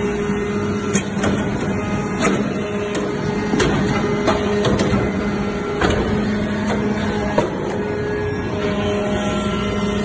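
Hydraulic briquette press running: a steady hum from its hydraulic pump and motor, with irregular sharp metallic clicks and knocks about once a second.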